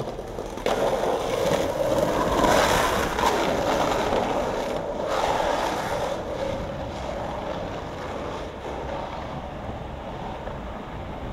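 Skateboard wheels rolling fast on asphalt down a steep street, a steady gritty rolling noise that starts with a knock about a second in and slowly fades.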